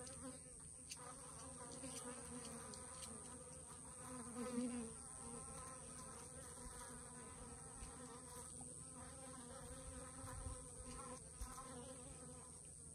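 Honeybees buzzing as they forage in and around a cactus flower, a soft hum that rises and falls as bees fly close and away, loudest about four to five seconds in.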